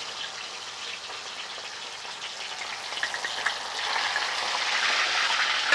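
Whole mojarra fish frying in very hot oil in a copper pot, a steady crackling sizzle. It gets louder about two-thirds of the way through as more fish are lowered into the oil.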